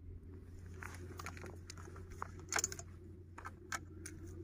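Faint clicks, taps and rustling of hands handling an over-and-under shotgun and a shotgun shell, with a slightly louder cluster of clicks about two and a half seconds in.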